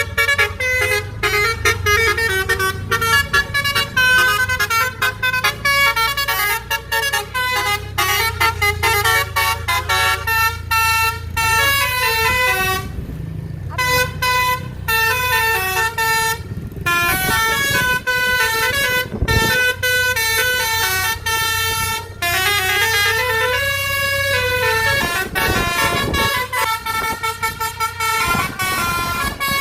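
Basuri multi-tone 'telolet' bus horn playing a fast tune of short stepped notes, with a few brief gaps and one sliding note about two-thirds of the way in, over a low engine rumble.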